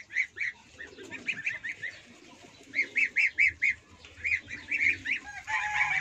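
Domestic turkey calling in quick runs of short, high notes, several a second, with a longer, fuller call near the end.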